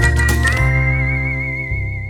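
Background music: a whistle-like lead melody holding a long, slightly wavering note over sustained chords and bass, with the beat stopping about half a second in and the music fading toward the end.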